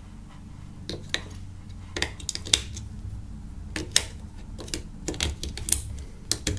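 AAA batteries being pushed into a black plastic four-cell battery holder: a string of irregular sharp clicks and clacks as the cells knock against the plastic case and snap past the contacts.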